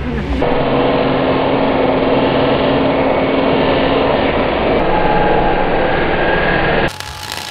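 Angle grinder running steadily with its disc grinding steel, cutting off abruptly near the end.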